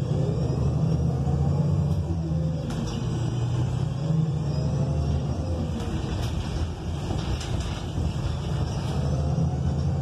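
Inside a moving ElDorado National Axess transit bus: its Cummins Westport L9N natural-gas engine and drivetrain drone steadily, with a faint whine that rises and falls. Light rattles and clicks from the cabin fittings come and go.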